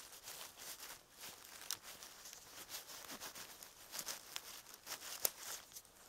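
Dry leaf litter and pine needles rustling and crackling as they are disturbed, with scattered small clicks and one sharper snap about five seconds in.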